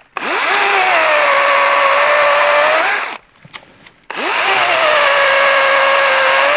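Battery-powered DeWalt chainsaw cutting through a thick bush honeysuckle stem in two runs of about three seconds each. Each run starts with a quick rising whine as the motor spins up, then holds a steady whine, pitched a little lower while the chain bites into the wood. The second run starts about four seconds in.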